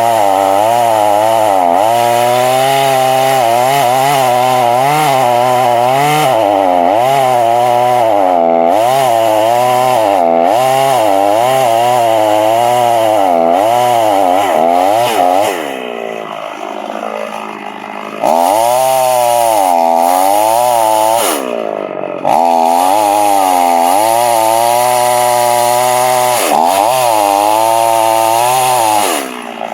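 Two-stroke chainsaw cutting the bottom cut of a felling notch in a tree trunk at full throttle, its engine pitch wavering as the bar works through the wood. About fifteen seconds in it drops back toward idle for a couple of seconds, dips briefly again a few seconds later, then returns to full-throttle cutting.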